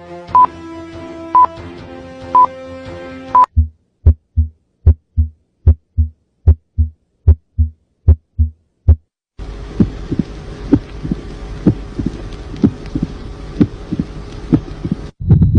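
A short musical jingle with electronic beeps about once a second, then recorded heart sounds: clean lub-dub pairs at about 75 beats a minute. About halfway through, a second heart recording follows, its beats set against a steady hiss and hum.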